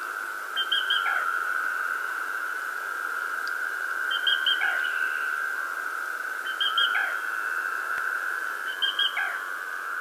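Wildlife calls: a steady, high, unbroken chorus, with a short call repeated four times, about every two to three seconds. Each call is a few quick high notes followed by a sliding note.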